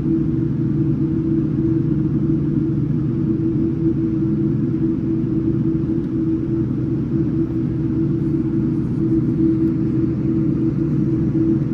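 Cabin noise inside a Boeing 787-9 on the ground before takeoff: a steady low rumble with a constant hum, unchanging throughout.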